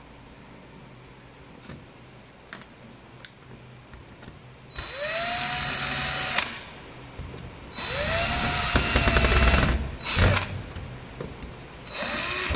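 A Stanley cordless drill/driver runs in four short bursts, each spinning up with a rising whine, driving the mounting screws of a switch plate into its box. The third burst is very brief. A few faint clicks come before the first burst.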